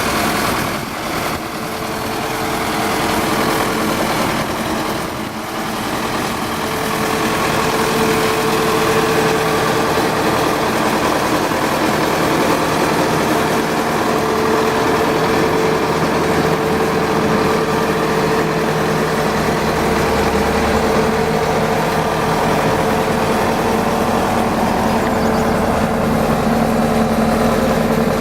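2013 Bobcat T590 tracked skid steer's diesel engine running steadily, with brief dips in level about a second in and again around five seconds in.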